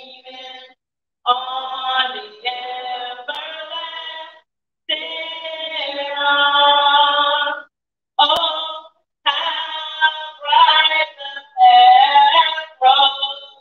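A woman singing in long held phrases; the sound drops out abruptly to silence between phrases.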